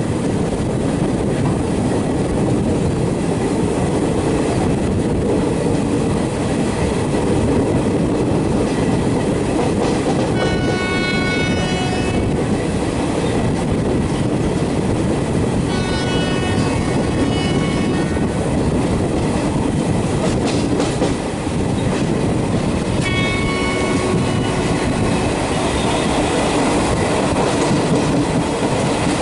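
Kerala Express passenger train running over the track with steady wheel-and-rail clatter, broken by three horn blasts from its WAP4 electric locomotive, each one to two seconds long, the last the shortest.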